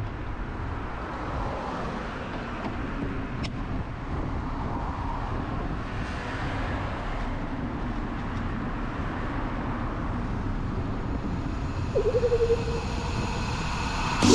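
Steady rushing noise from riding a road bike: wind on the camera's microphone mixed with tyre and road noise, with a brief wavering tone near the end.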